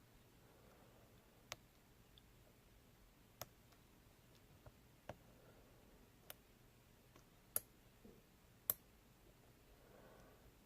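Faint, sparse clicks from a lock pick working the pins of an ASSA Ruko 2 lock core, about seven scattered ticks with the two loudest near the end. The clicks include set pins dropping back down, a sign that the picker has lost his progress and must start over.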